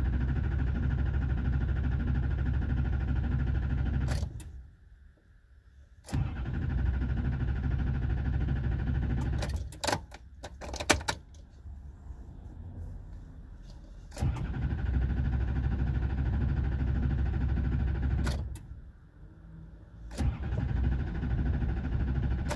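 Starter cranking a 2002 Chevy Silverado's 6.6-litre Duramax diesel V8 in four long bursts with pauses between, and a few sharp clicks about ten seconds in, the engine not catching. This long crank is a fault the truck still has.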